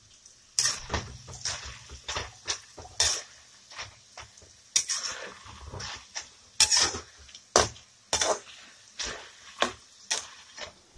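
Metal ladle clinking and scraping against an aluminium wok, in repeated irregular knocks, while it turns tapioca pieces deep-frying in coconut oil. The frying oil bubbles faintly underneath.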